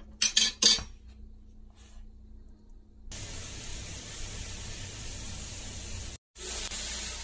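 Chopped onion frying in oil in a paella pan, being sweated until translucent: a steady sizzling hiss that starts abruptly about three seconds in. A couple of sharp clicks come in the first second.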